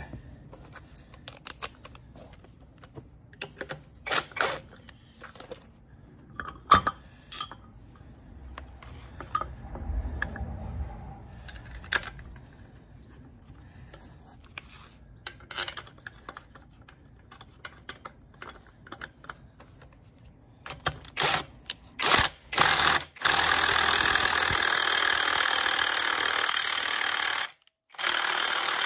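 Scattered clinks and knocks of tools and metal parts being handled. Then a cordless impact gun runs a bolt in: a few short bursts, then about four seconds of continuous hammering, a brief stop, and another burst near the end.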